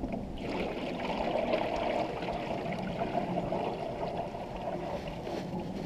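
Sugar syrup pouring from a plastic bucket into a beehive feeder, a steady pour that starts about half a second in.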